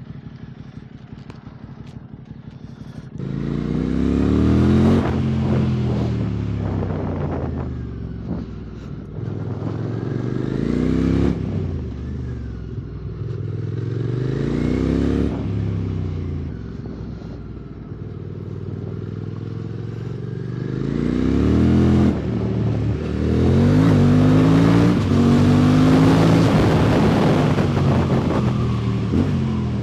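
QJ Motor SVT650X parallel-twin with an Arrow Racetech slip-on exhaust, idling low for about three seconds, then pulling away and revving up and falling back several times through gear changes. Wind noise rises over the microphone at speed near the end.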